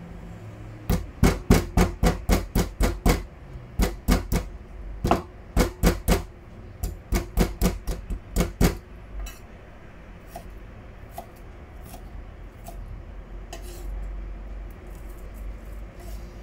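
Kitchen knife chopping fast on a bamboo cutting board, mincing ginger: rapid sharp knocks about four a second in several runs, stopping about nine seconds in, after which only a few light taps follow.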